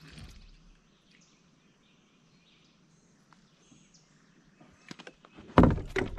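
Faint bird chirps over quiet background, with a soft thump at the start, then a cluster of loud knocks and thumps about five and a half seconds in.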